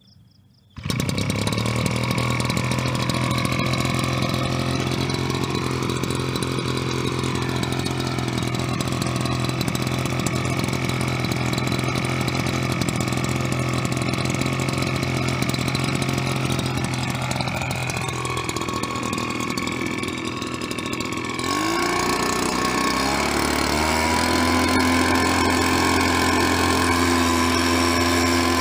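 Yongjia backpack mist blower's small two-stroke engine coming in suddenly about a second in and running steadily at low speed. About two-thirds of the way through it revs up to a higher, steady speed as the throttle is opened to blow fertilizer out of the spout.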